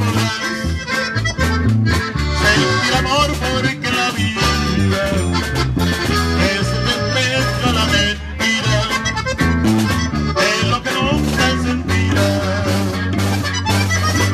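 Live norteño band playing an instrumental passage: an accordion carries the melody over a strummed guitar and an electric bass line.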